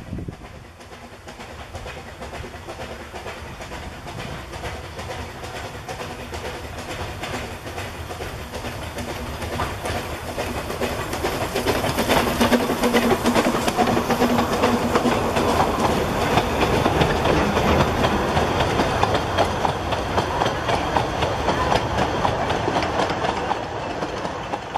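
Narrow-gauge steam train approaching and passing: the locomotive's sound grows until it goes by about halfway through. The coaches then rattle past with a rapid clicking of wheels on the rails, and the sound fades near the end.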